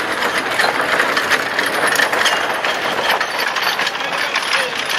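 Many marching feet on a paved road, with a steady rattling clatter from a hand-drawn gun carriage rolling on its spoked wheels.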